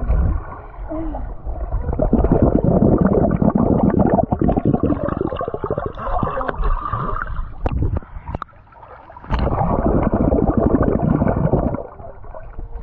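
Muffled underwater bubbling and water rushing, heard through a camera held under the surface of a swimming pool as swimmers move past it. Two long loud stretches of dense crackling bubble noise, with a quieter gap of about a second between them.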